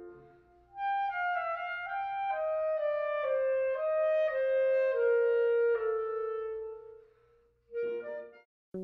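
Clarinet playing a short descending melody, note by note, ending on a long held note that fades away. Near the end, a brief separate sound follows.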